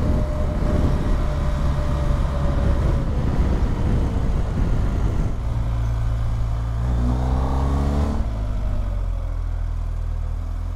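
BMW R1250GS boxer-twin motorcycle riding at speed, with wind rushing over the microphone. About seven seconds in, the engine revs rise for a second and then drop away suddenly at about eight seconds, leaving a lower steady engine note.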